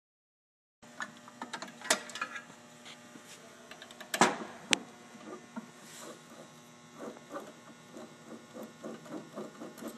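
Metal hand tools clicking and knocking on a hot melt roll coater as its bolts are undone, over a steady electrical hum. A few louder knocks come about 2 and 4 seconds in, then a run of small quick ticks.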